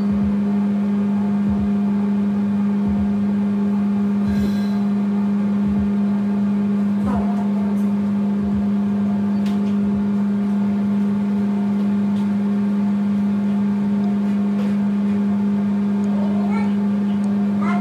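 An engine running at a constant speed: a loud, steady, deep hum with a strong single low tone and overtones above it, unchanging throughout.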